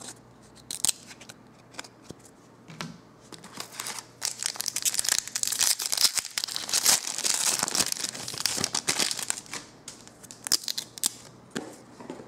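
A trading-card pack wrapper being torn open and crinkled by hand. A few light clicks come first, then a long stretch of dense crinkling starts about four seconds in and lasts some six seconds, with a few more crackles near the end.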